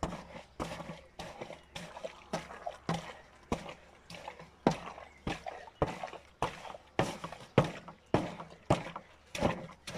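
A wooden post pounding fermenting cherries and sugar in a half-full plastic 60-litre drum: wet, even strokes about every 0.6 s. The fruit is being crushed into a mash for distilling into kirsch.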